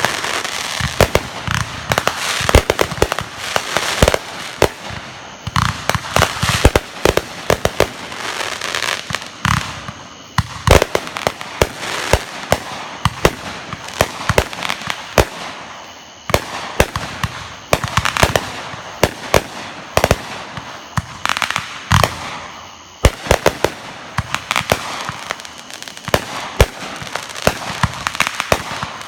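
Fireworks going off in a dense barrage: rapid sharp cracks and bangs, many a second, over continuous crackling, with brief lulls about a third and two thirds of the way through.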